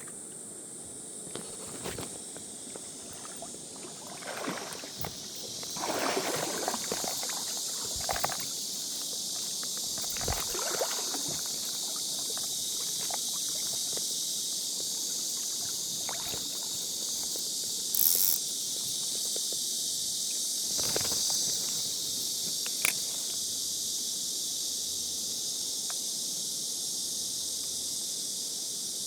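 Water sloshing around legs wading in a stream, several swishes in the first ten seconds, over a steady high-pitched insect drone. A couple of sharp clicks later on.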